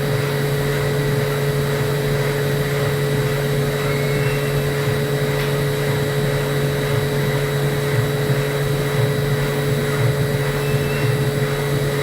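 Milling machine running steadily while cutting, a constant hum with a steady high whine from the spindle.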